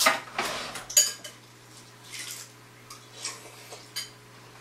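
Light clicks and clinks of hard objects, densest in the first second, with a sharp ringing clink about a second in and a few fainter ticks after, over a steady low hum.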